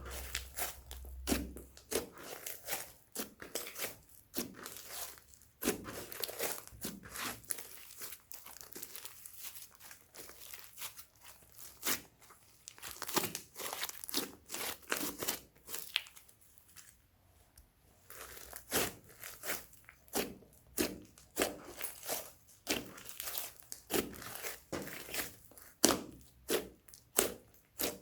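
Slime being squeezed, stretched and folded by hand, giving an irregular run of sticky crackles and pops, with quieter stretches around a third of the way in and again a little past the middle.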